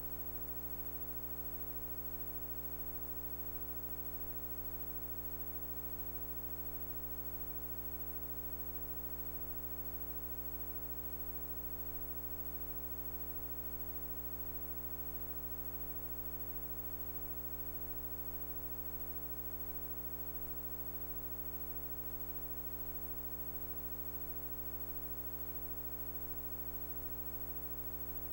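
Steady low electrical hum with a buzzing stack of overtones, unchanging in pitch and level, with faint tape hiss above it.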